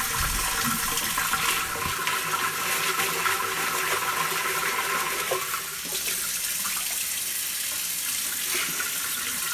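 Kitchen faucet running steadily into a stainless steel sink, the stream splashing into and over a glass fishbowl of aquarium gravel that is being rinsed clean.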